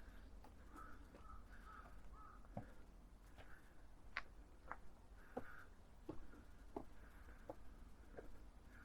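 A crow cawing repeatedly, faint and distant, with soft regular ticks of footsteps on a path about every 0.7 s.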